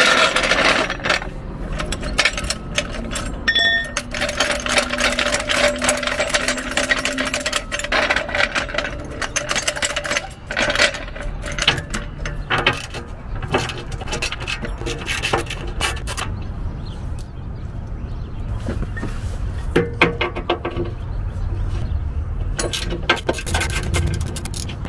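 Hand socket ratchet clicking in quick runs while skid-plate bolts are backed out, with scattered metal clinks of tools and bolts.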